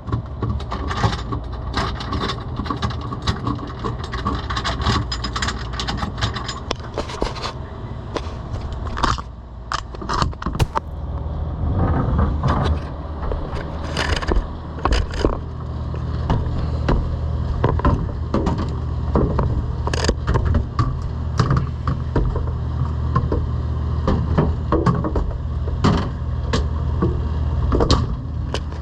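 Steady low hum of a commercial refrigerator's running refrigeration machinery, overlaid with repeated irregular scrapes, clicks and knocks of parts and panels being handled as the unit is put back together.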